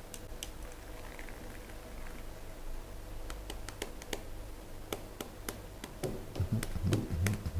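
Scattered light clicks and taps, growing more frequent after about three seconds, with a cluster of low thumps near the end.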